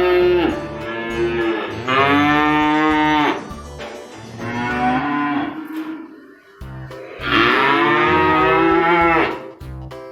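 Cow mooing: a series of long, drawn-out moos, the longest near the end, over background music.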